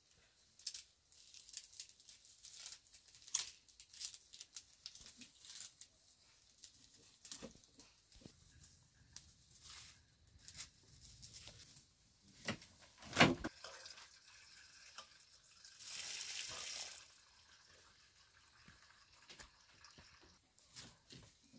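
Dry sticks and bamboo kindling being handled and a small wood fire on an open hearth crackling, with scattered snaps and clicks. One louder knock comes about 13 seconds in, and a short hiss about 16 seconds in.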